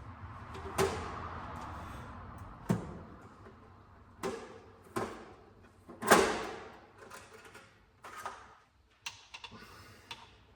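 Irregular knocks and clanks of metal engine parts and tools being handled during a bottom-end teardown, about seven in all, the loudest about six seconds in.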